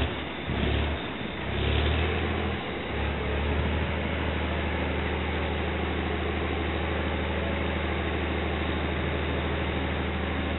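Heavy diesel engine idling steadily at a constant pitch, with a few louder rumbling surges in the first three seconds.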